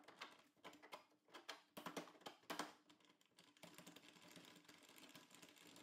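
Faint clicks and knocks of the wooden outer vise jaw and its metal hardware being handled and fitted onto steel threaded rods, sped up, turning into a quick, even faint ticking after about three and a half seconds.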